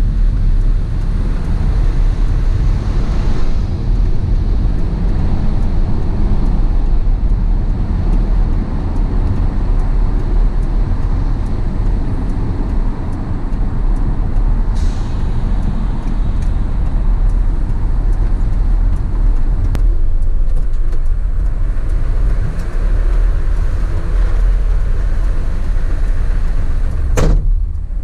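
Heavy vehicle driving: a steady, loud low engine and road rumble, with a short sharp click near the end.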